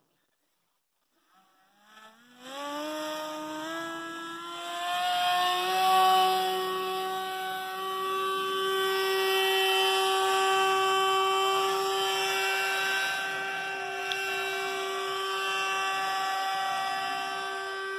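Brushless electric motor (Racerstar 3536 1200kv) spinning a Gemfan 10x6 propeller on an RC paramotor: silent at first, then throttled up about two seconds in, its whine rising in small steps before holding at a steady high pitch under power.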